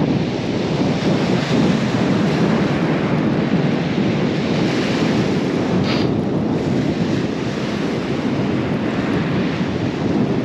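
Wind buffeting the microphone over steady surf breaking on a steep shingle beach, a dense low rumble without let-up.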